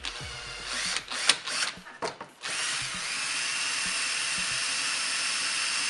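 Cordless drill boring into fiberglass motorcycle bodywork with a dull bit. For the first couple of seconds it runs in short, uneven bursts with sharp clicks, then about two and a half seconds in it settles into a steady high whine.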